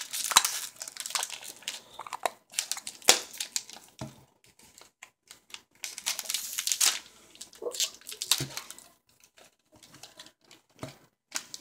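Small clear plastic bags of toy building pieces crinkling and rustling in irregular clusters as they are handled and pulled open, with a few short clicks and quieter gaps between.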